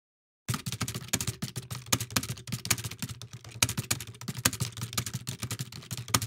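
Rapid computer-keyboard typing sound effect: dense, irregular keystroke clicks starting about half a second in, over a low steady hum.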